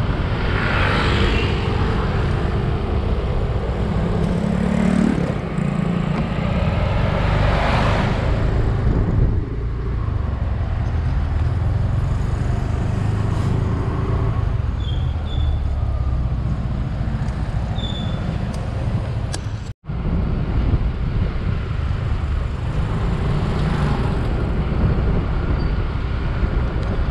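Motorcycle riding along a road: a steady low rumble of engine and wind on the microphone. Louder vehicle passes come about a second in and again around eight seconds. The sound cuts out for an instant about twenty seconds in.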